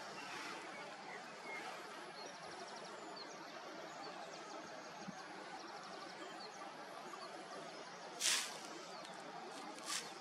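Steady outdoor background hiss with faint, high, short ticks in the middle. A brief loud rush of noise comes about eight seconds in, and a shorter one near the end.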